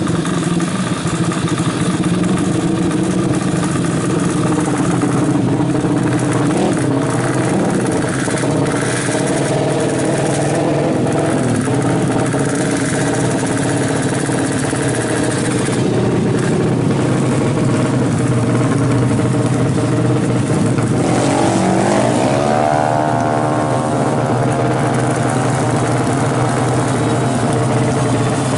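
A 200cc Honda drag-bike engine running loud and continuously, revving up and down. About three quarters of the way through, the revs climb sharply and are held high.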